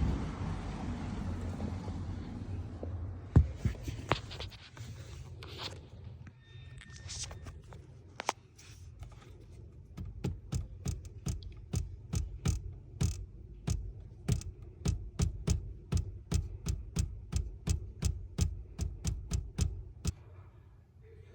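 Metallic rattle from a 5th-generation Toyota 4Runner's dashboard: a loose plastic gasket vibrating against metal parts. After a low rumble, it comes as scattered sharp clicks and then a steady run of about two to three clicks a second over the last half.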